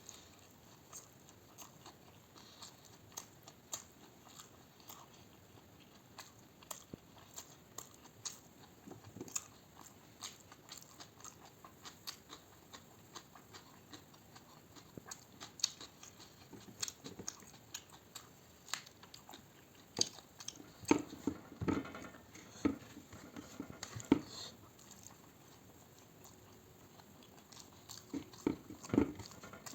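Close-up eating sounds: a person chewing and biting food, with wet mouth clicks and smacks. The sounds grow denser and louder about two-thirds of the way through and again near the end.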